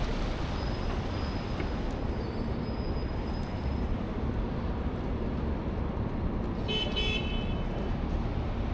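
Steady city street traffic noise, with one short car horn honk about seven seconds in.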